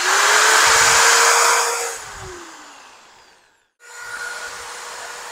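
Crown CT10126 400 W electric drill running with no load: a steady high whine for about two seconds, then winding down as it is let go. It is started again about two-thirds of the way in and runs steadily, more quietly.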